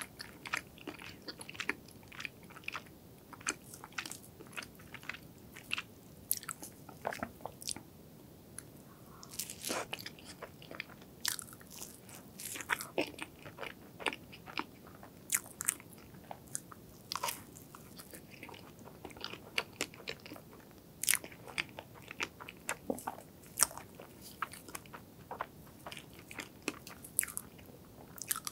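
Close-miked chewing and mouth sounds of a person eating soft strawberry crepe cake with cream, made up of many short, irregular clicks and smacks.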